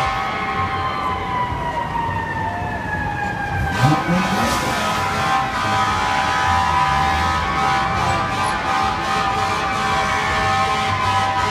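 Fire truck's air horn sounding almost without a break, with its mechanical siren winding down. About four seconds in, the siren spins up again from a low growl, rises to a wail and then starts to fall.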